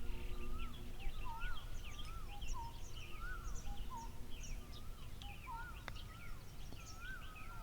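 Birds calling: a repeated rising-and-falling whistled note about once a second, with many short, higher chirps from other birds over it. A steady low rumble runs beneath, and a single faint click comes about six seconds in.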